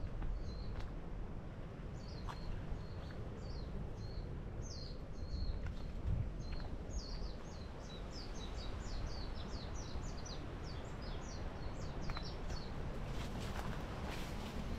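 A bird singing a run of short, high, falling notes, spaced out at first and then quickening into a fast series for several seconds, over a steady low rumble.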